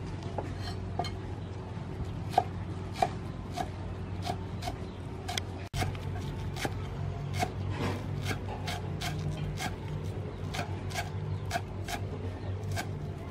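Cleaver chopping green onions on a round wooden chopping block: a steady run of sharp knocks, about two or three a second, with a brief break near the middle.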